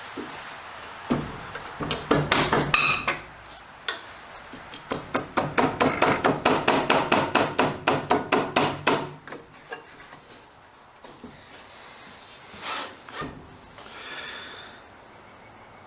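Rapid hammering, about six sharp strikes a second for about four seconds, starting around five seconds in, after a few scattered knocks.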